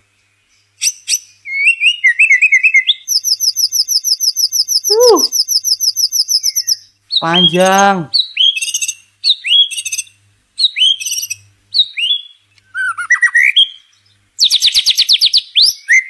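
White-rumped shama (murai batu) singing: short whistled phrases, then a long rapid trill of repeated notes lasting about four seconds, followed by a run of short sharp chirps and another fast trill near the end. A long, full song.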